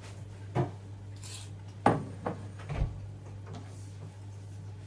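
Cookware knocking on a glass-top electric hob as a frying pan is set down beside a saucepan: about four separate knocks, the loudest about two seconds in, over a steady low hum.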